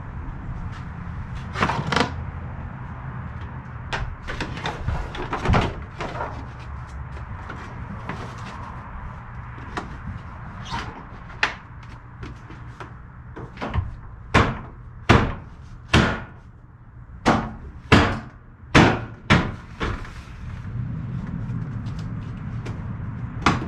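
Plastic front bumper cover of a 2011 Chevrolet Equinox being fitted and knocked into place: scattered sharp knocks and snaps, then a quick run of about eight hard knocks a bit under a second apart in the middle, over a steady low hum.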